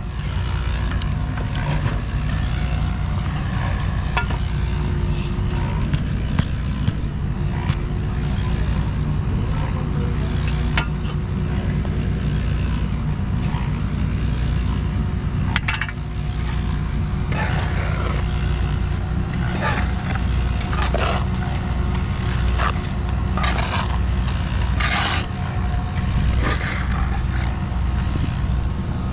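An engine running steadily in a low drone, with scraping and scattered knocks over it and several louder bursts of scraping in the second half.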